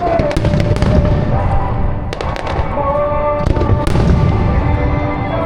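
Fireworks going off: a constant low rumble of bursts, with three clusters of sharp bangs and crackles, over music with a held melody.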